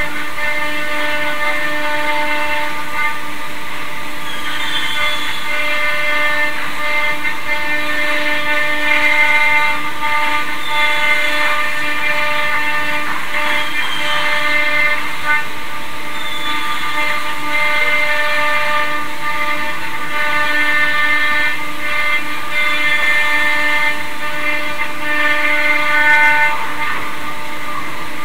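CNC router's HSD spindle (9.6 kW, air-cooled) whining at one steady pitch while its cutter routes shapes out of a board sheet, with a steady rush of cutting and dust extraction underneath. It grows slightly louder at moments as the cut goes on.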